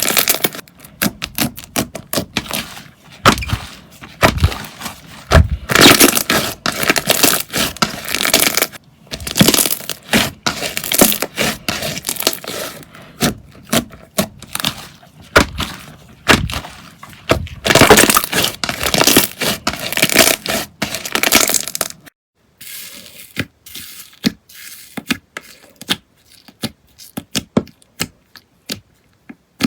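Slime being squeezed and pressed by hand, giving dense crackling and popping clicks. About three-quarters of the way through it turns quieter, with only scattered clicks.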